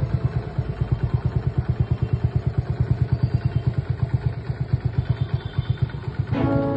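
Honda Cub 70cc air-cooled single-cylinder four-stroke engine idling, with an even beat of about ten firings a second. Background music comes in near the end.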